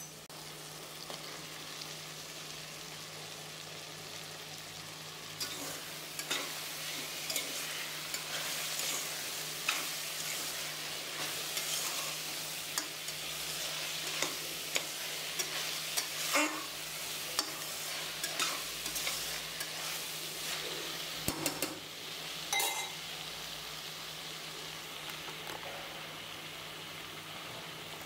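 Jackfruit pieces and masala sizzling in an open pressure cooker while a spoon stirs them. Frequent spoon scrapes and clinks against the pan run through the middle, over a steady frying hiss.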